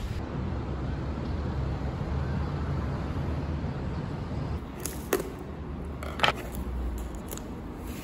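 Steady low rumble of urban background noise, with a few short sharp clicks about five and six seconds in, the second the loudest.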